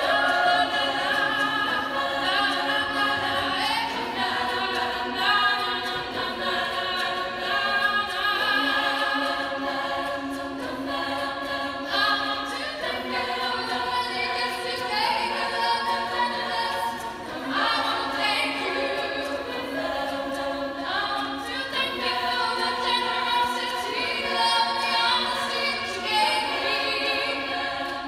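All-female a cappella group singing, with a soloist at the microphone leading over the other voices' held chords.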